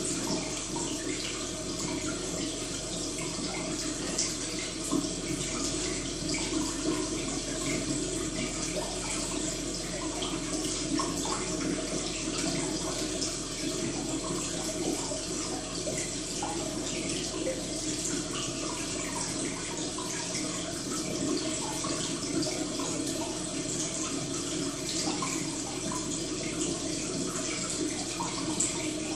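Steady sound of running, trickling water.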